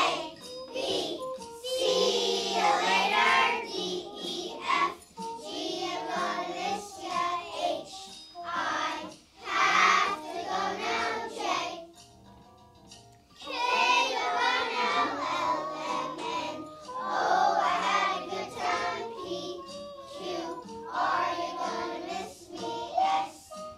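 A group of young kindergarten children singing a song together in unison, with a short pause a little past halfway.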